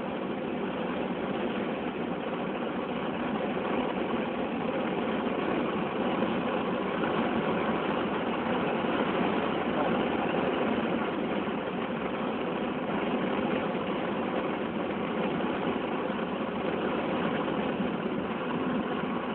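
Peugeot 208 GTi's 1.6-litre turbocharged four-cylinder engine running at speed on track, heard from inside the cabin together with road noise. It makes a steady drone that swells slightly about midway.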